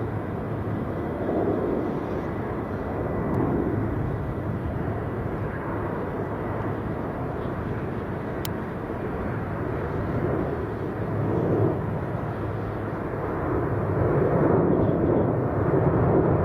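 Jet airliner engine noise outdoors, a steady low noise that swells and grows louder near the end, with one sharp click about halfway.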